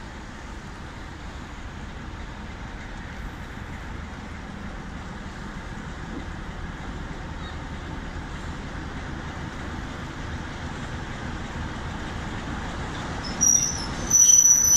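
Class 47 diesel locomotive approaching at low speed, its Sulzer V12 engine running and slowly growing louder. About a second before the end its wheels start a high-pitched squeal on the tight curve of the run-round loop.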